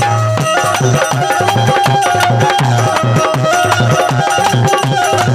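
Instrumental interlude of folk music: a harmonium plays a melody of held notes over a steady hand-drum rhythm.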